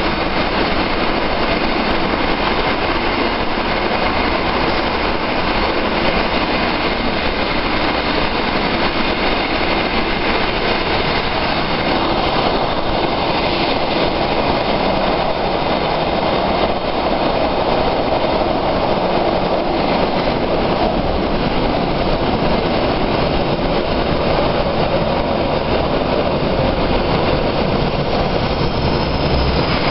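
Bucharest metro IVA train running underground, heard from inside the passenger car: a loud, steady rumble and rush of wheels on rail and air in the tunnel. Near the end a high whine starts to fall in pitch.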